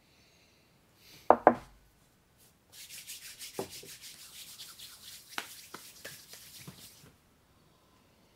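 Two pairs of hands rubbing rum briskly between the palms, a fast dry swishing that runs for about four seconds and stops shortly before the end. About a second in there are two short loud sounds.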